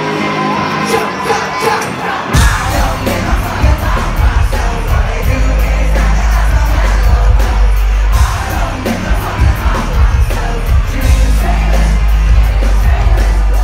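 Live rock band playing loud through the venue's PA, with heavy bass and drums crashing in a couple of seconds in, vocals and a crowd yelling along. The sound is harsh and overloaded through a phone's microphone in the audience.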